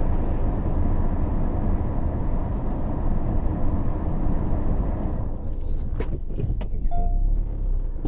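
Car's engine and road noise heard from inside the cabin: a steady low rumble that eases off about five seconds in, followed by a few light knocks.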